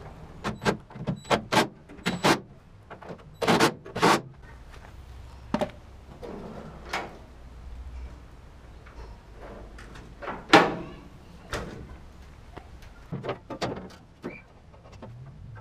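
Steel tailgate of a 1985 Toyota pickup being handled, shut and dropped open again: a string of metallic clicks, latch clunks and knocks, with the loudest clank about ten seconds in.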